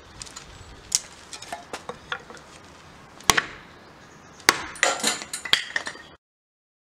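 Hatchet work on thin kindling sticks over a wooden block: a few sharp wooden knocks, then a quick run of knocks and clatter as sticks and split pieces hit the block and paving stones. The sound cuts off abruptly about six seconds in.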